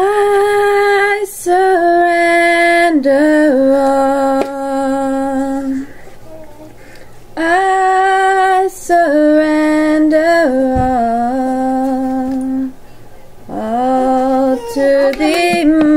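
A woman singing unaccompanied, holding long steady notes, with short pauses between phrases.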